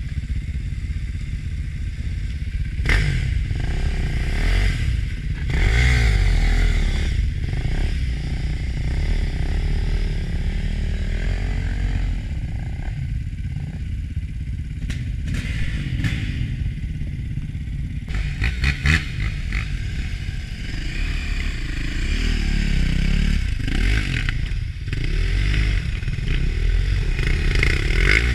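Dirt bike engine running through mud, revving up and falling back off again and again. Knocks and rattles come from the bike as it goes over the ruts.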